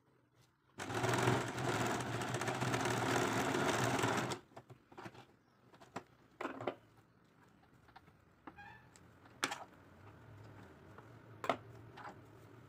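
Electric sewing machine running steadily for about three and a half seconds as it stitches a zip into thick fleecy fabric, then stopping. After it stops come a few scattered sharp clicks and light knocks.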